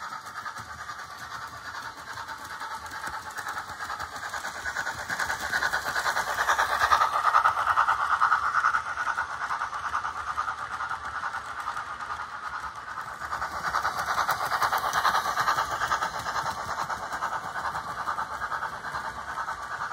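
OO-scale Hornby model steam locomotive and its coaches running along the layout track, a steady mechanical running noise of wheels on rails and motor. It swells as the train comes close, loudest about seven to eight seconds in, with a second swell around fifteen seconds in.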